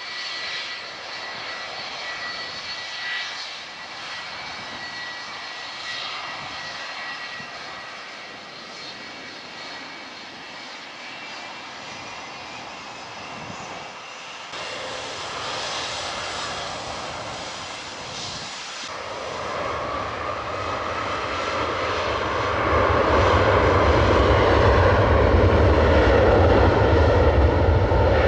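Rolls-Royce RB211 turbofans of a Boeing 757-200 running at low thrust with a steady whine, then spooling up to takeoff thrust about two-thirds of the way through. From there they run much louder, with a deep rumble under the roar.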